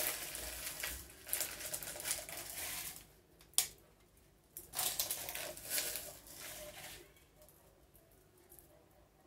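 Soft rustling and crinkling of a plastic container of chocolate shavings being handled while the shavings are sprinkled by hand, with one sharp click about three and a half seconds in.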